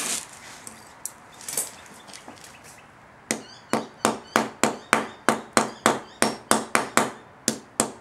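Hammer striking a freshly poured gold piece to chip off the black borax slag and bits of ironstone and quartz fused to it. About fifteen sharp blows, roughly three a second, start about three seconds in, after a few light clicks.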